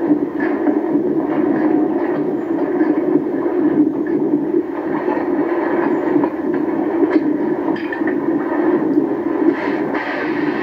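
A steady rumbling drone, mechanical in character, that stays even in level throughout, with faint scattered ticks over it.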